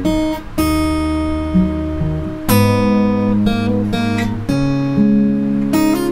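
Steel-string acoustic guitar, tuned down a half step, fingerpicking a slow intro phrase: single notes and pairs of strings plucked with open strings left ringing. A new note or pair is picked about every one to two seconds, with hammer-ons lifting the pitch in between.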